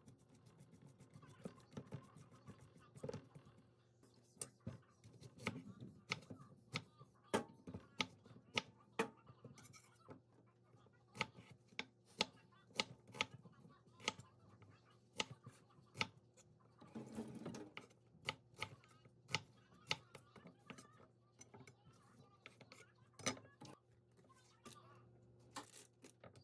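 Hands rubbing salted cucumber slices in a stainless steel bowl, a soft squishing rustle. Then a chef's knife cuts an onion on a wooden cutting board: sharp knocks at uneven intervals, about one or two a second, with a brief louder rustle about two-thirds of the way through.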